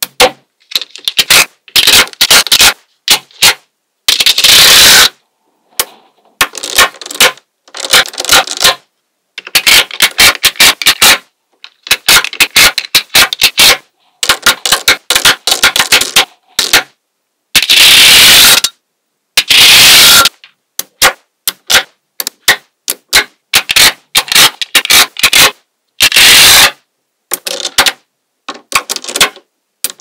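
Small magnetic balls clicking and snapping together as strips and chains of them are laid onto a slab of balls. The clicks come in quick clusters with short gaps, and a few longer stretches of rapid clattering.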